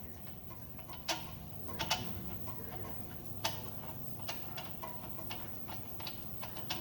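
Socket ratchet clicking as a 13/16 spark plug socket unscrews the spark plug from a small generator engine: a few scattered clicks at first, then a run of about three light clicks a second.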